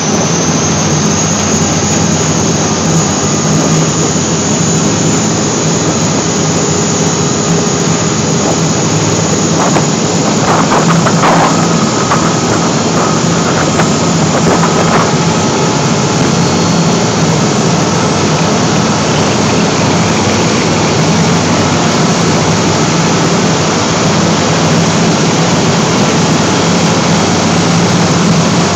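Seine skiff's engine running hard and steady under load as the boat pulls against a tow rope made fast to a piling, with its wash churning the water astern.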